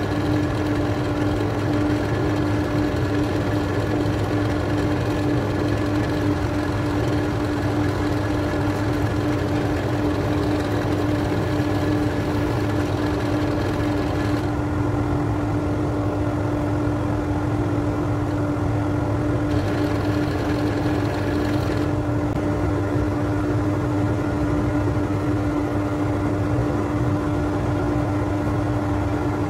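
Wood lathe motor running steadily with an even hum, while sandpaper hisses against the spinning oak handle. The sanding hiss stops about halfway through, returns briefly a few seconds later, then only the lathe's hum is left.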